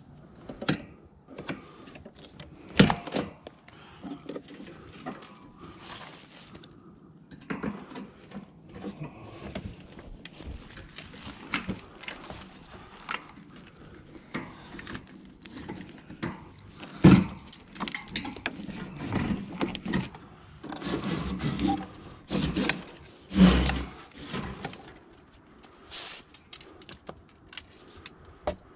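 Scrap metal being handled and pulled at: irregular knocks, clanks and scrapes, with three louder sharp bangs spread through.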